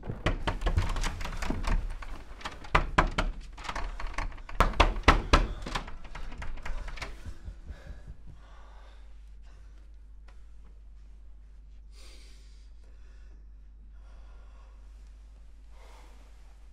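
A locked door being banged on and rattled hard in a rapid run of knocks and thuds, loudest about five seconds in, stopping abruptly about eight seconds in. Afterwards only faint breaths are heard.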